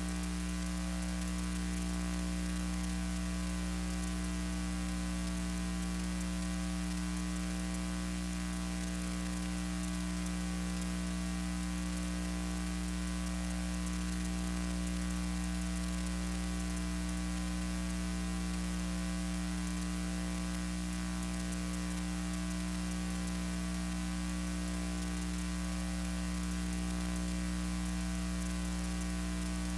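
Steady electrical mains hum with hiss and no other sound: the noise floor of a silent archival film transfer.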